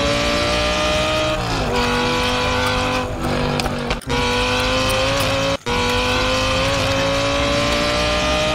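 Supercar engine sound, revving high with a pitch that climbs slowly and drops back about a second and a half in, as at a gear change. It cuts out briefly twice, near four seconds and five and a half seconds, then climbs again.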